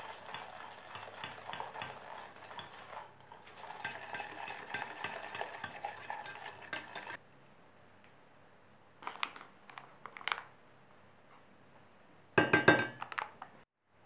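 Utensils stirring and scraping an egg-yolk mixture in a stainless steel saucepan, a whisk and then a spatula, for about seven seconds with a short break, followed by a few light clicks. Near the end comes a brief, loud crinkle of a plastic packet being handled.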